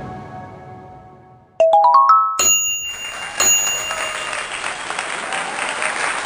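Background music fades out, then a quick rising run of chime-like notes. Then applause-like clapping starts about two and a half seconds in and carries on steadily.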